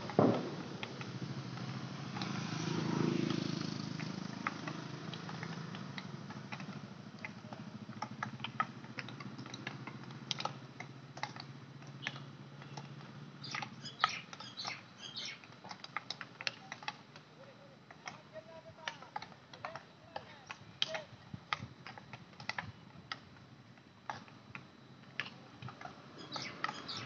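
Irregular sharp clacks of field hockey sticks striking balls, several at once from many players, thickening from about eight seconds in. A vehicle hums past in the first few seconds.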